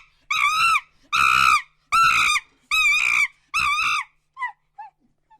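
A monkey screaming: five loud, high-pitched screams about a second apart, each rising and then falling in pitch. Near the end come a few faint, short, falling squeaks.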